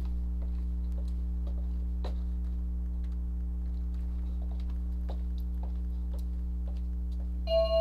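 Steady low electrical hum, with faint scattered taps over it. Near the end, a few sustained tones of outro music begin.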